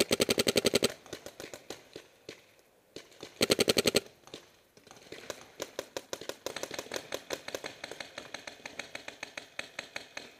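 Planet Eclipse Geo2 paintball marker firing on high-pressure air in fast strings of shots: a loud burst of about a dozen shots right at the start and a shorter burst about three and a half seconds in. From about five seconds in, fainter rapid paintball fire from other markers runs on without a break.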